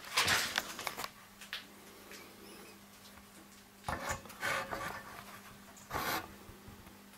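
Handling noise from the camera being moved and set into position: rubbing and bumping on the microphone in three bursts, the first near the start, the next about four seconds in, and a short one about six seconds in.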